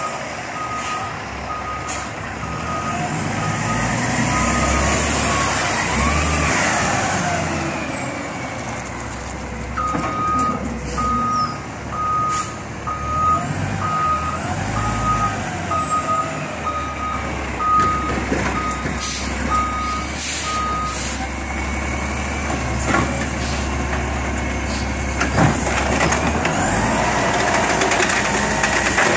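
Automated side-loader garbage truck reversing, its backup alarm beeping about once a second over the engine's steady drone, with a whine that rises and falls twice. Sharp hisses and clanks come in the second half.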